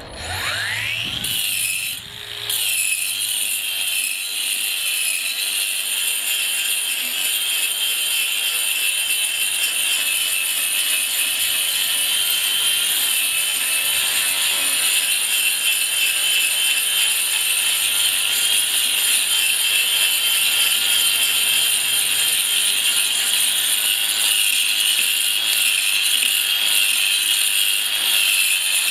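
Cordless brushless angle grinder (ToolPRO 18V) fitted with a diamond cup wheel, grinding concrete. The motor spins up with a rising whine, dips briefly about two seconds in, then runs steadily at a high whine under load.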